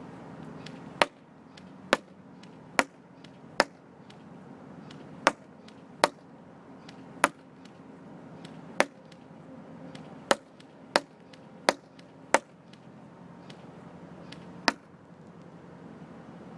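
Airsoft BBs striking a target box: about thirteen sharp smacks at irregular intervals of roughly a second, with fainter ticks in between.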